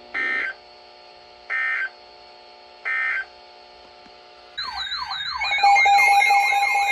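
Three short data bursts of an Emergency Alert System end-of-message code, each under half a second and about a second and a half apart, over a faint steady drone; about four and a half seconds in, a louder warbling siren-like alert tone starts, sweeping up and down about twice a second over a steady tone, marking the start of the next alert.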